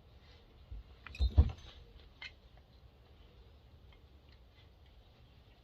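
A few small clicks and knocks of a hand tool against the metal parts of a chainsaw being taken apart, the loudest a dull knock about a second and a half in.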